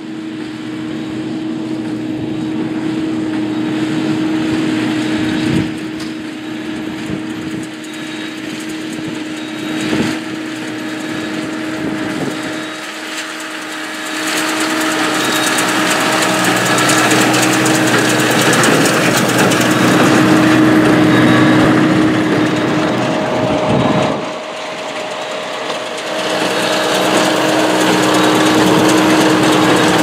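New Holland T6.175 tractor engine running steadily under load while it pulls a New Holland BB940 large square baler through hay, with the baler's machinery clattering over the engine's hum. It grows louder about halfway through as the outfit comes close, and there are a few sharp knocks.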